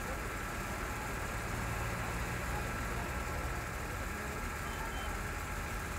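A vehicle engine idling steadily, a continuous low hum.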